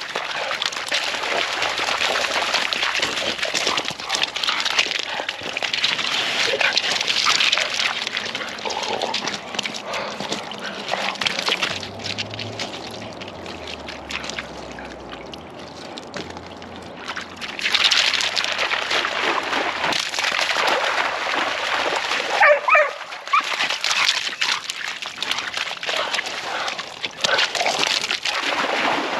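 English springer spaniels splashing through shallow water and padding over wet pebbles, with a short high whine from a dog about two-thirds of the way in.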